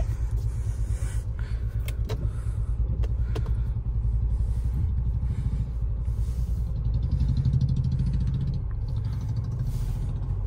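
Car's engine and tyres heard from inside the cabin while driving slowly over a rough dirt track: a steady low rumble, with a few faint knocks in the first few seconds.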